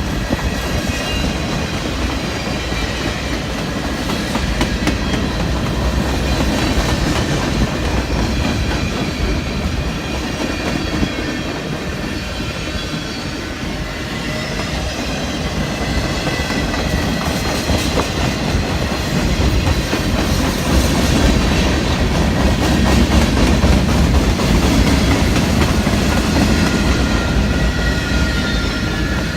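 Freight cars of a long CSX manifest train rolling past, wheels clacking over the rail joints over a steady rumble, with a thin high wheel squeal running through it. It grows a little louder past the middle.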